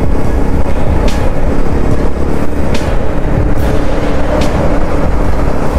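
Royal Enfield motorcycle running steadily at road speed, its engine note mixed with a heavy rush of wind on the microphone.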